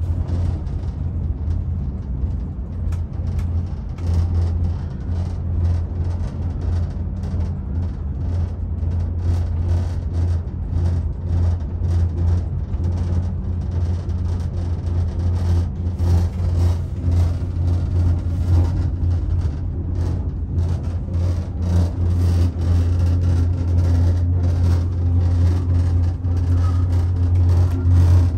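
Steady low rumble and hum inside a moving cable-car gondola cabin, with light clicking and rattling.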